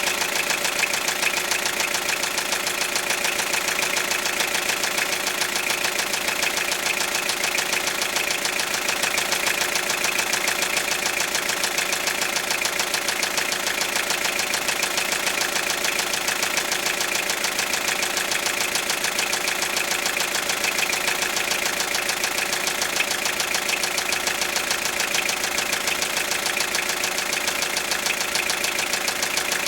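Toyota 3C-TE four-cylinder turbodiesel idling steadily with a rapid, even knock running through it: the engine knock that is the fault being shown.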